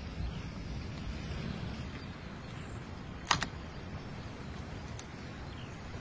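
Low, steady wind rumble on the microphone, with one sharp tap about halfway through, a knife set down on a wooden cutting board, and a fainter tick near the end.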